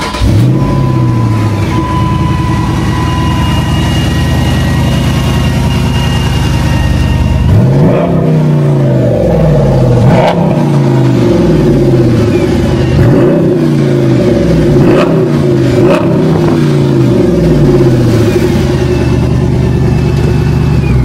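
2006 Jeep Grand Cherokee SRT8's 6.1-litre Hemi V8, through its Corsa dual exhaust, starting up with a brief flare, settling into a steady idle, then revved in a string of about nine quick throttle blips, one every second or so, before dropping back to idle near the end.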